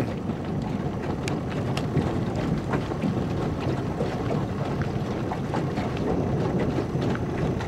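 Choppy water lapping and splashing, with many small sharp splashes scattered throughout, where a large school of redfish is churning the surface; a steady low rumble of wind underneath.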